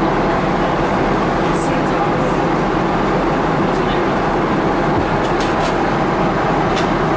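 Steady airliner cabin noise inside a Boeing 777-300ER, an even rush that holds the same level throughout, with a few faint clicks.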